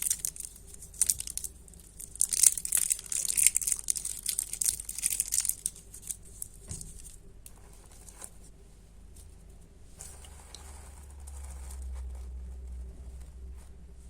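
Candy wrappers being crinkled and torn open, a dense crackly rustle for about the first six seconds that then thins out to quieter, occasional handling rustles.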